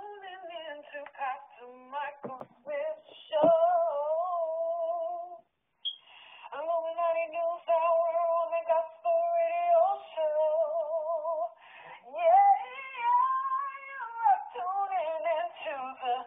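A high female voice singing, holding long notes that waver with vibrato. It breaks off briefly about five and a half seconds in.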